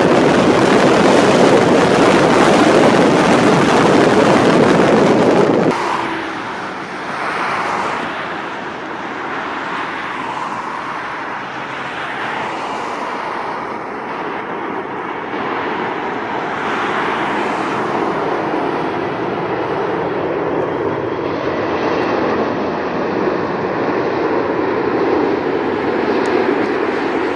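Jet airliner engines running: a loud, even jet noise that drops off suddenly about six seconds in, then a quieter steady jet sound that slowly builds again toward the end.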